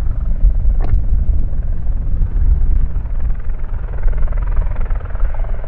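Eurocopter EC120B Colibri helicopter running, its turbine and rotors making a steady low rumble, with one short click just under a second in.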